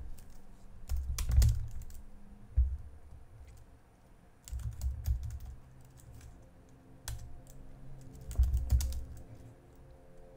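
Typing on a computer keyboard: clicking keystrokes in several short runs, with pauses between them.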